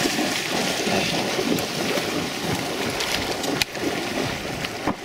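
Water sloshing and swishing with wind noise on the microphone, and a couple of sharp clicks near the end.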